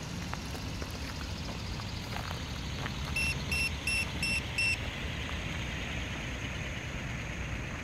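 Electric RC coaxial helicopter on the ground with its brushless motor and two rotors turning, a steady whir with a whine that rises slowly in pitch. About three seconds in come five short high beeps, about three a second.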